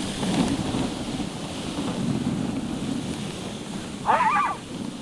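Dog sled runners sliding over snow, a steady rumbling noise with wind on the microphone. A short yelp comes about four seconds in.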